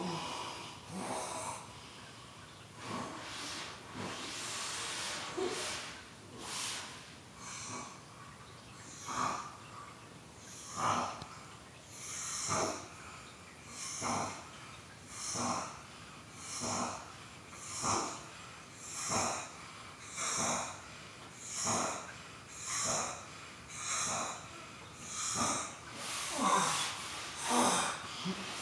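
A sleeping man snoring heavily through a wall, with harsh, rasping breaths. For the first several seconds the breaths are longer and uneven. From about nine seconds in they settle into short, regular snorts about every second and a quarter.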